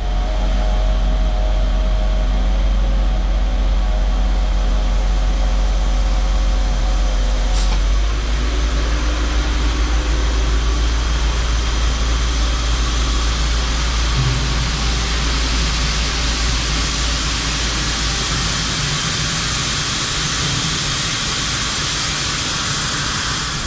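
Grain truck's diesel engine running steadily, heard from the cab. A short click comes about 8 seconds in, after which a steady hiss grows louder over the engine.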